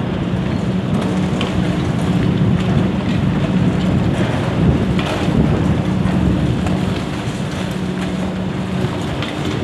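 High-reach demolition excavator's diesel engine running steadily with a low drone, with a few sharp knocks and crunches of concrete being broken around the middle.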